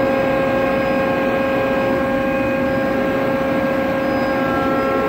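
Tarus CNC gun drill running while standing idle: a steady machine hum with a constant whine over an even rushing noise.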